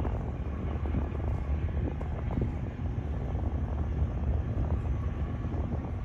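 A towboat's diesel engines run steadily under load as it pushes barges. Across the water they come through as a low, steady rumble.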